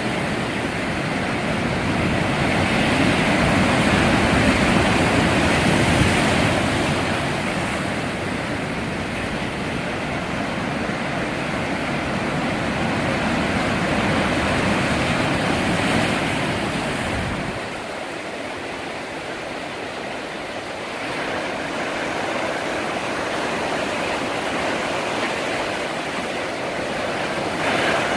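Sea waves breaking and washing on a beach, a steady rushing surf that swells louder a few seconds in and again about halfway through.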